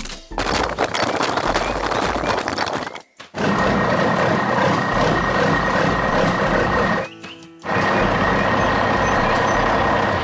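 A heavy truck running with a steady high alarm-like tone over it, like a reversing alarm. The sound cuts out briefly about three seconds in and again about seven seconds in.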